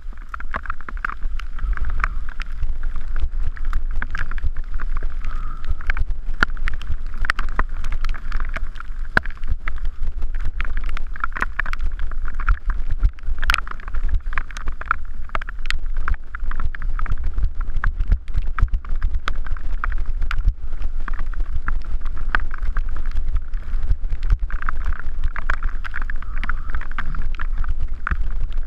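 Mountain bike descending a rough dirt singletrack at speed. Wind buffets the microphone with a constant low rumble, over a steady run of clicks and rattles from the bike and tyres on the trail.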